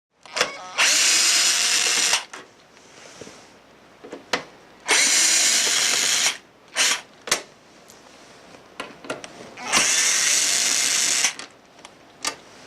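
Power drill/driver with a 1/8" hex bit backing out screws: three runs of about a second and a half each, with short blips of the trigger between them.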